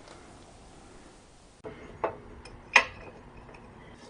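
Two sharp metallic clicks about two seconds in, some two-thirds of a second apart, with a few lighter ticks: a fabricated steel mounting plate and its bolts knocking against the underside of a 125cc pit bike engine while the plate is fitted.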